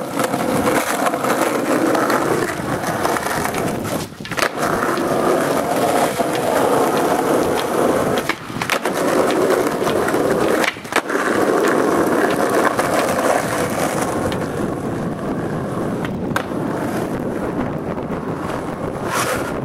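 Skateboard wheels rolling fast over rough asphalt, a loud steady rumble broken by a few brief dips and a couple of sharp clicks.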